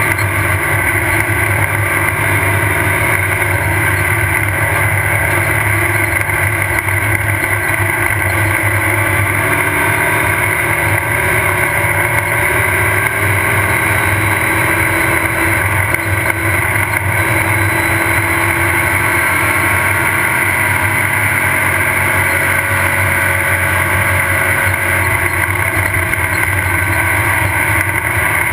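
Off-road race car's engine running steadily under way, with rough, rattling road noise over it, heard from on board.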